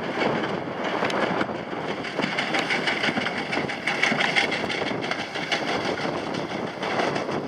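John Deere 3040 tractor's diesel engine running steadily while a Köla Rivale 2 small-square hay baler works behind it, with a continuous mechanical clatter of many small knocks and rattles.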